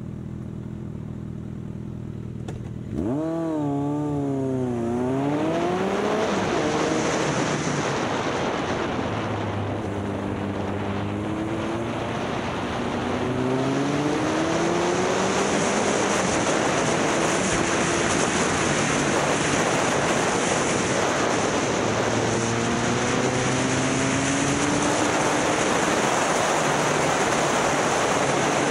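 Motorcycle engine idling, then revving sharply about three seconds in as the bike pulls away. It accelerates through the gears, its pitch climbing in steps, under heavy wind rush on the microphone.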